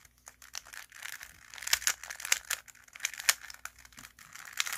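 Plastic 3x3 Rubik's cube being scrambled by hand, its layers turned quickly in a run of irregular clicks and clacks.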